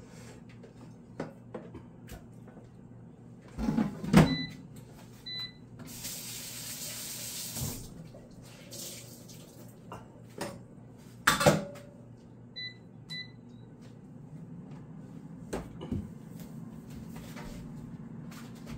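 Kitchen work sounds: scattered knocks and clatter of dishes and utensils, a short burst of running water, and two pairs of short electronic appliance beeps, over a steady low hum.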